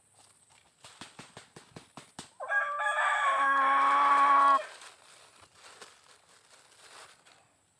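A rooster crowing once, a single loud call held for about two seconds, a little over two seconds in. Before it comes a run of quick, light taps.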